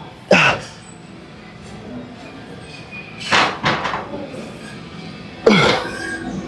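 A man's loud grunting shouts of effort as he presses a barbell overhead, one with each rep. There are three: about a third of a second in, around three and a half seconds, and about five and a half seconds in. The first and last fall quickly in pitch.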